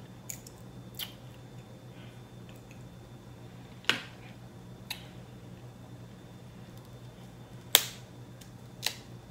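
Crab leg shell cracking and snapping as it is broken apart by hand to get at meat that is stuck tight: about six short sharp cracks, the loudest about four and eight seconds in, over a faint steady hum.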